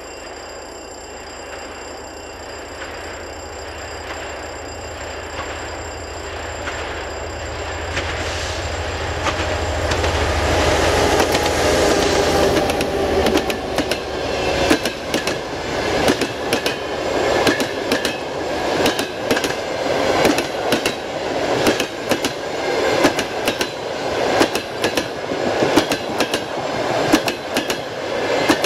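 TEP70BS diesel locomotive approaching, its engine drone growing louder until it passes about twelve seconds in. Then the passenger coaches roll by at speed, their wheels beating a regular clickety-clack over the rail joints, about one beat a second.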